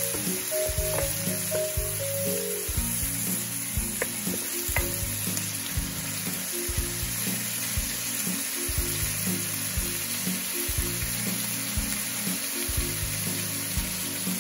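Chopped bell peppers, long beans, scallions and garlic sizzling in a stainless steel pot while being stirred with a wooden spoon, with a few light knocks. Background music with a low melodic line plays over it.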